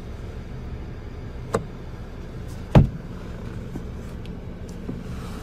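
Two sharp clicks from a car's interior fittings being handled, about a second apart, the second louder, over a steady low hum.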